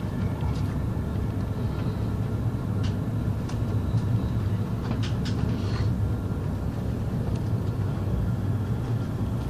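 Steady low rumble of a moving vehicle heard from inside its passenger cabin, with a few faint clicks or rattles midway.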